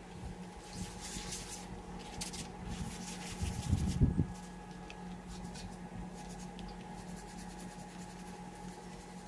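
Hand brush scrubbing the degreaser-soaked bottom end of a cast-iron LM7 5.3L engine block in repeated short scraping strokes, with a louder bump about four seconds in. A steady low hum runs underneath.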